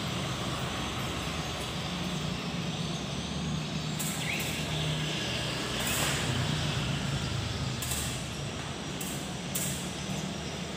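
Arc welding on a steel window grille: a steady crackling hiss from the arc over a low hum, with a few sharp clicks.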